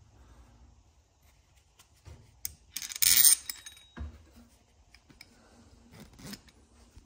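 Metal tap-fixing parts, a flat washer and the threaded mounting stud, clinking and scraping together as they are handled, with a sharp metallic clatter about three seconds in and a few lighter clicks near the end.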